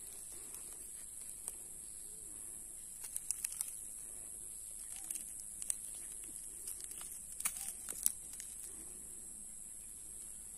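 Outdoor field ambience: a steady high-pitched hiss with faint bird calls. Scattered light rustles and clicks of plants being handled come in bunches about three seconds in and again about seven to eight seconds in.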